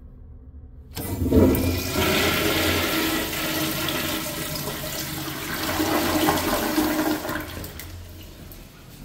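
An American Standard Madera toilet flushed by a flushometer valve: the water rush starts abruptly about a second in, runs loud and steady as the bowl swirls, and dies away near the end.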